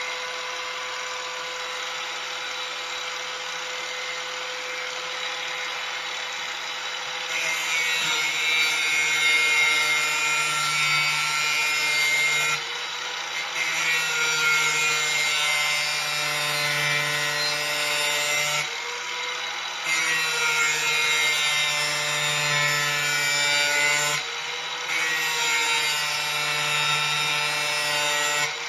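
Electric angle grinder running free for several seconds, then grinding the steel edge of a lawn mower blade in four long passes. The whine gets louder and harsher while the disc is on the metal and eases back briefly between passes.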